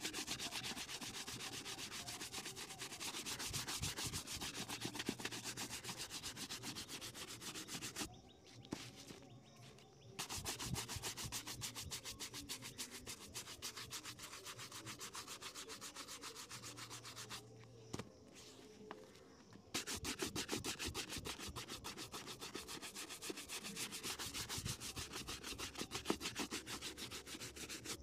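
Bristle shoe brush scrubbing a leather shoe in rapid back-and-forth strokes, in three long bouts with short pauses about 8 and 18 seconds in.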